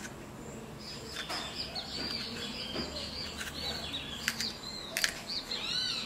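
Small birds chirping and twittering, with a quick run of arching notes near the end. A few sharp clicks are also heard.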